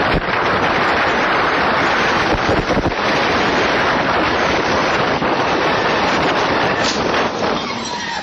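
Loud, steady wind rush buffeting the microphone of a car travelling fast, mixed with road noise. It eases off near the end, with a couple of brief sharp sounds.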